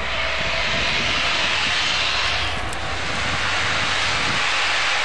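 Steam locomotive blowing off steam: a loud, steady hiss that dips briefly about halfway through, over a low rumble.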